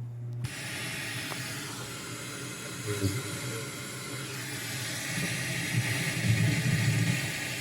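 Stereo system playing a weakly received radio station: a steady static hiss comes on about half a second in, with the faint broadcast underneath growing louder near the end.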